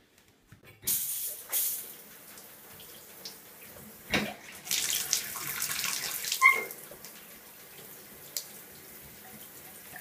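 Bathtub faucet turned on, water running and splashing into the tub in surges, then settling to a steady stream. A sharp knock comes about four seconds in, and a short squeak, the loudest sound, at about six and a half seconds as the handle is turned.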